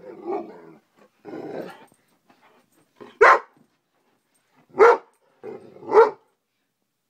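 Young Great Dane mix alarm-barking at a bug on the ceiling: low growling in the first couple of seconds, then three loud, sharp barks spaced a second or more apart.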